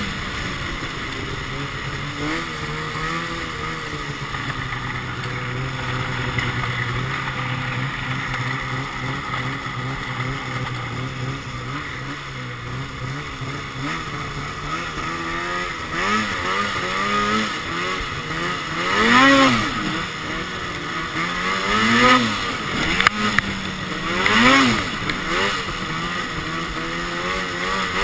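Arctic Cat 2012 XF 800 snowmobile's two-stroke engine running through a Sno Stuff aftermarket silencer. It holds a steady cruise for about the first half, then revs up and back down several times in the second half.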